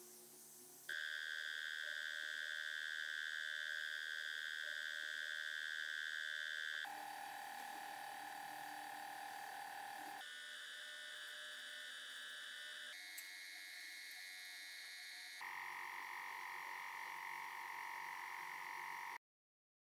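Compressed-air spray gun spraying paint, a steady hiss with high whistling tones, in several separate takes that cut in abruptly one after another; it stops shortly before the end.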